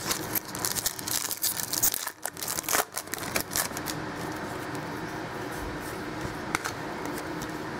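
Foil wrapper of a trading-card pack crinkling and tearing as it is ripped open and crumpled, a dense run of crackles that dies down after about four seconds. After that it is quieter, with an occasional click as the cards are handled.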